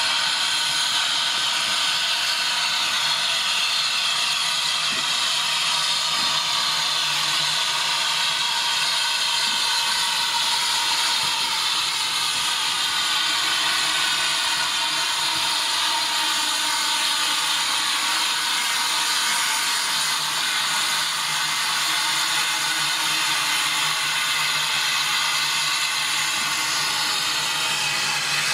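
A steam train giving a steady, loud hiss, with a faint low hum underneath.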